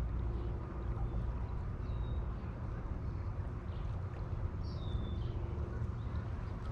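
Steady rush of flowing river water, heaviest in the low end. A few short, high bird chirps come through about two and five seconds in.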